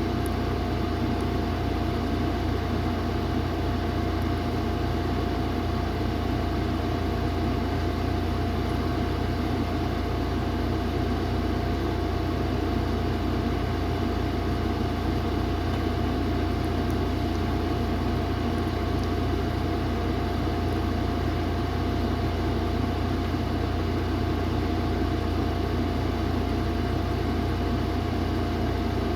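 Steady machine hum with a constant whine above it, unchanging.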